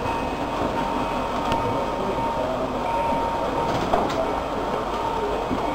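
Model trains running on a club layout: the steady rumble and whir of small locomotive motors and wheels on the track, with a sharp click about four seconds in.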